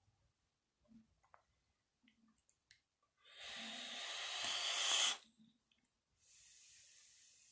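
A fog machine pumps out fog: a loud, even hiss about three seconds in that grows louder for about two seconds and cuts off abruptly, then a fainter, higher hiss near the end. A few faint clicks come before it.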